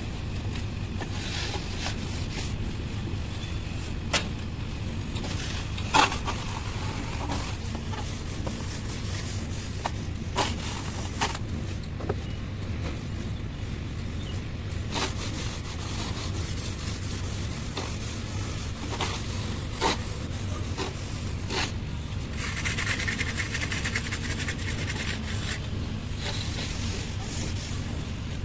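Steady low rumble with scattered sharp knocks of tools, and scraping of a straightedge and float over wet cement plaster, most plainly from about 22 to 25 seconds in.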